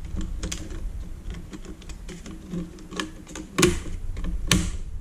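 Light irregular clicks and taps of fingers handling and pressing on a circuit board in its plastic panel housing, with two sharper clicks near the end.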